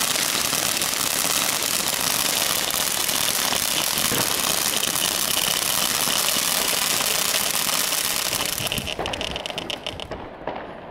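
Panda Feuerwerk 'Frozen' firework battery spraying a fountain of sparks with a loud, steady hiss. It breaks into a quick run of crackles and fades as it burns out near the end.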